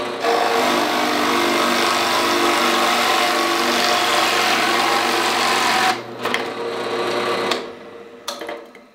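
Harbor Freight floor drill press running, its dull bit boring into a wood block with a steady motor hum under the loud rasp of cutting. About six seconds in the cutting stops, and the motor hum fades out a second or so later.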